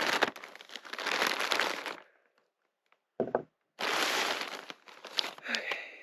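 Plastic packaging crinkling and rustling as it is handled and opened by hand, in two stretches with a short pause between them and a few sharp clicks near the end.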